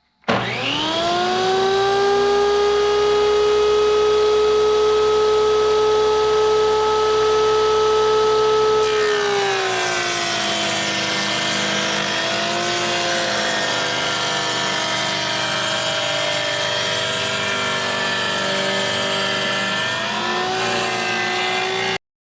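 Electric power tool's motor spinning up to speed with a rising whine, running steady, then dropping in pitch under load from about nine seconds in as it cuts a shiplap rebate along a wooden floorboard; it stops abruptly near the end.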